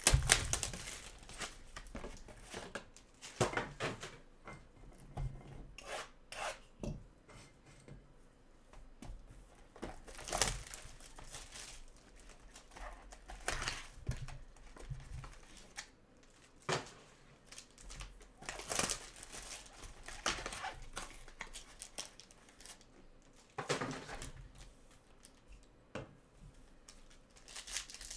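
A sealed trading card box and its wrapped card packs being opened by hand: irregular rustling, crinkling and tearing, with scattered sharper scrapes of cardboard and wrapper.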